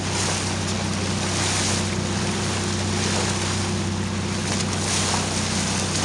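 Boat under way: a steady engine hum with water rushing along the hull and wind on the microphone.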